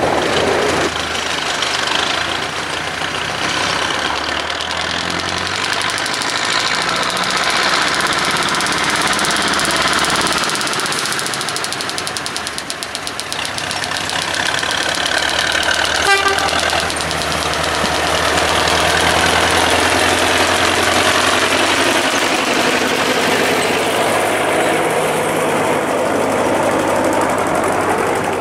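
Diesel shunting locomotive (locotracteur) running with a steady knocking beat as it shunts a rake of coaches. It dips a little in level then grows louder as it draws near, with a short high-pitched toot or squeal about halfway through.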